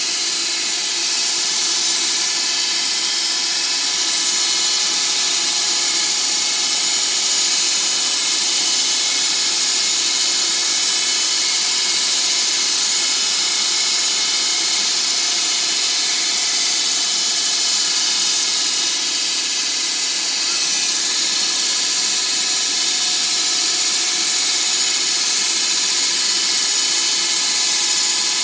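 CNC-converted Grizzly G0602 benchtop metal lathe turning a 30° point on bar stock with a carbide insert: a steady hiss of the cut and spray over a constant motor whine. The owner calls the speeds for this cut all wrong.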